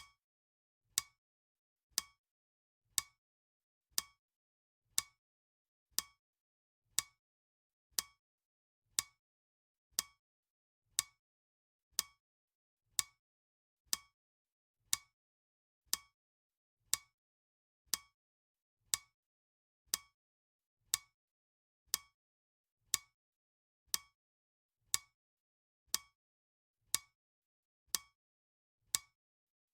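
Clock ticking steadily for a countdown timer: a sharp, even tick about once a second.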